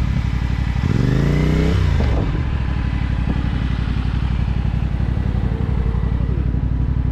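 Motorcycle engine idling steadily close by, with one quick throttle blip about a second in that rises and falls in pitch.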